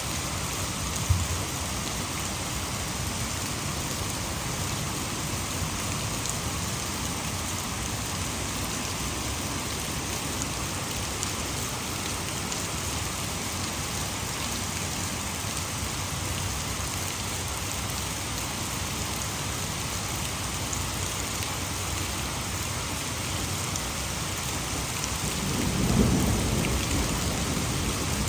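Heavy rain pouring steadily, mixed with the rush of water falling over a hydroelectric dam. Near the end a low rumble of thunder swells and fades, and a single sharp tap sounds about a second in.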